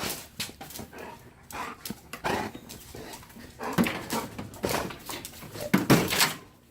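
Excited dog making a run of short, breathy huffs and noises, irregularly spaced, with the loudest about six seconds in.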